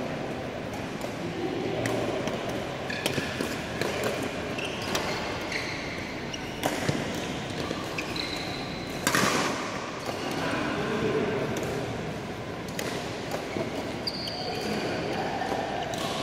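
Badminton doubles rally: sharp racket hits on the shuttlecock every second or two, the strongest about nine seconds in, with a couple of short shoe squeaks on the court mat.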